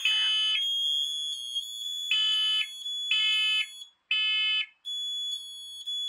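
Smoke alarms sounding under test, the Kidde KN-COSM-IB among them: loud half-second beeps about a second apart in groups of three, the temporal-three fire alarm pattern. A second, steadier high-pitched alarm tone sounds underneath.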